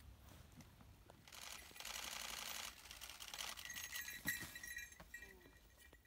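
Several DSLR camera shutters firing in rapid bursts, overlapping into a dense clatter for about a second and a half, then scattered separate clicks.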